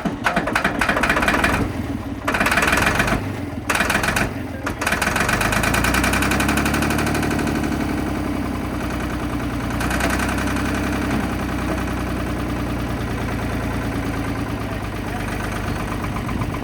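Ford 3500 backhoe's diesel engine, long unused, being cranked in a few short stop-start bursts. About five seconds in it catches and keeps running unevenly, its pitch rising and then holding steady.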